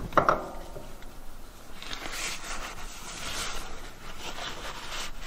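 Scraping and rubbing of metal parts as a hydraulic control valve piece is worked into place by hand, loudest in the middle.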